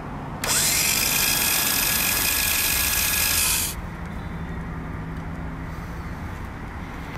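An electric power tool spins up about half a second in, runs steadily for about three seconds, then cuts off abruptly.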